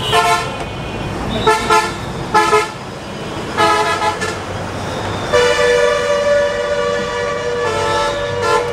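Vehicle horns honking repeatedly in road traffic: a few short toots, then a long held horn from about five seconds in, over steady traffic noise.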